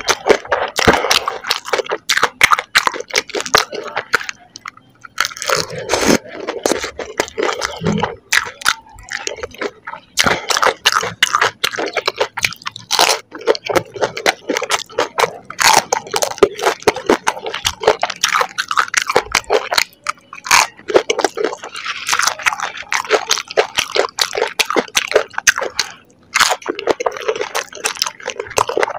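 Close-miked crunching and chewing of crisp golgappa (panipuri) puri shells, a dense run of sharp irregular cracks and crackles with brief pauses between mouthfuls.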